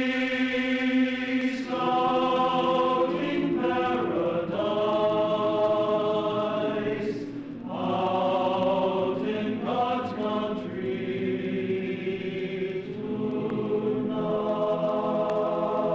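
Background choral music: voices singing long held chords in a slow, chant-like style, moving to a new chord every few seconds.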